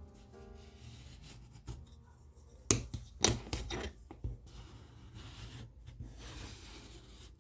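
Hand work on the paper edges of a book block: paper rubbing and scraping, with a cluster of sharp clicks or snips about three seconds in, then steadier scraping.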